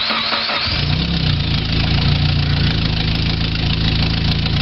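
A 2000 Chevy Tracker's 2.0-litre four-cylinder engine, just fired up after a timing chain replacement, settles into a steady idle within the first second and keeps idling evenly on its readjusted idle screw.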